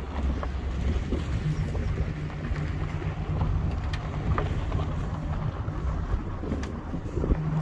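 Ford Mustang driving on a dirt road, heard from inside the car: a low road rumble and a steady engine hum, with wind buffeting the microphone and a few light ticks.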